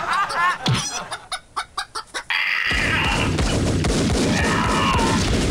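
Chickens clucking: a run of short separate clucks in the first two seconds, then a denser, busier stretch of clucking.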